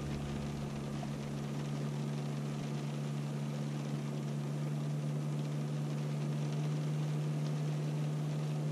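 Steady hum and fan noise inside a Tesla during a high-power Supercharger charge: the car's thermal-management system running as the battery heats up under charge. Two steady low tones sit under an even rush of air.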